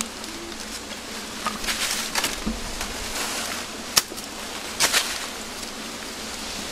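Wild honeybees buzzing steadily around their comb, with a few sharp crackles and snaps of dry bamboo leaves and twigs as a hand pushes in among them, about two seconds in, at four seconds and again near five.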